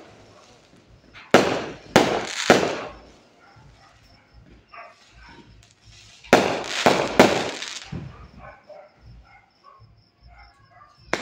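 Aerial fireworks bursting overhead: three sharp bangs in the first few seconds, then a dense run of overlapping bangs with crackling tails about six to eight seconds in, and one more sharp report near the end.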